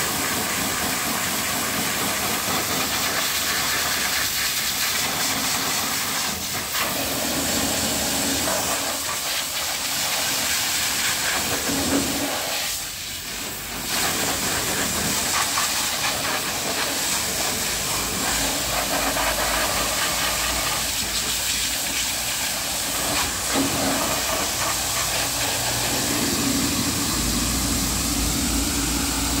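High-pressure washer jet hissing steadily as it blasts mud off a car's tyre, plastic hubcap and wheel arch. It drops briefly about halfway through.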